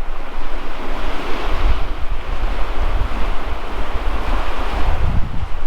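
Wind-driven waves washing and breaking on the lakeshore in surging swells, with strong wind buffeting the microphone as a low rumble. This is rough, storm-whipped water on a large lake.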